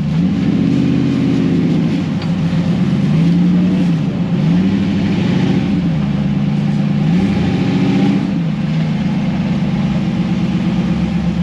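Off-road 4x4's engine revving up and down over and over, its pitch rising and falling about five times.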